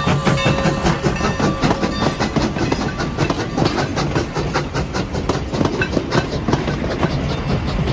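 Sierra Railway steam locomotive No. 28 and its train rolling past close by, with a dense rapid clicking and clanking of wheels over the rail joints.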